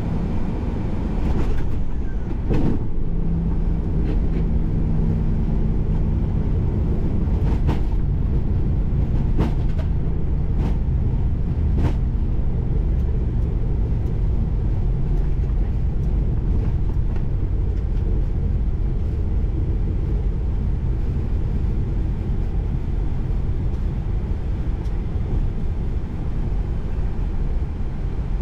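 Boeing 737-800 flight-deck noise on the landing roll: a loud, steady rumble of the wheels on the runway and the engines with thrust reversers deployed, while the aircraft brakes down towards taxi speed. A few sharp clicks and knocks come in the first twelve seconds, and a low hum is heard from about four to eight seconds in.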